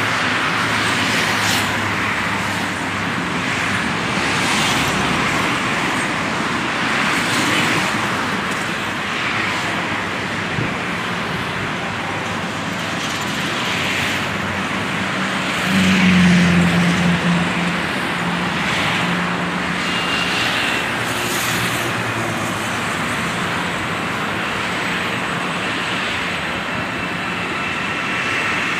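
Steady road-traffic noise that swells and fades every couple of seconds as vehicles go by, with a short low tone about halfway through that is the loudest moment.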